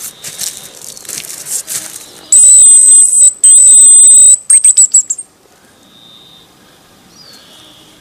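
Scattered steps and rustling, then a loud, very high whistling tone held about two seconds with one short break, ending in a quick run of short falling chirps.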